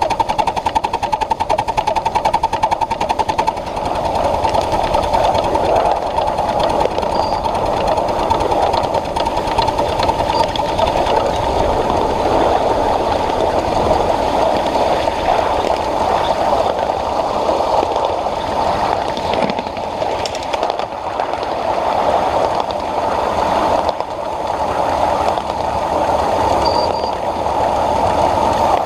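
Ride-on scale live-steam Pacific (4-6-2) locomotive running along the track hauling passenger cars: a steady, fast mechanical clatter.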